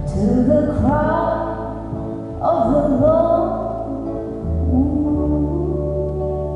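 Live performance of a slow song: sung phrases with sliding pitch over sustained keyboard chords and a steady bass, with choir-like voices.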